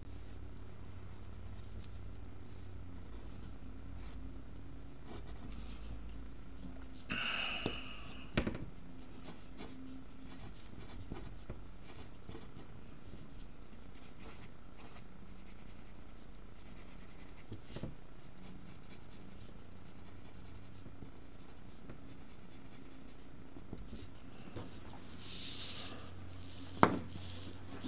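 Graphite pencil scratching on paper in short drawing strokes. Two brief louder rustles, about seven seconds in and near the end, and a sharp click just before the end.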